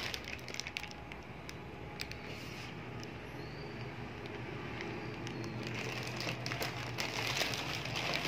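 Clear plastic bag of wiring crinkling and rustling as it is handled, with scattered sharp clicks and taps from the cardboard box and foam packaging, over a steady low hum.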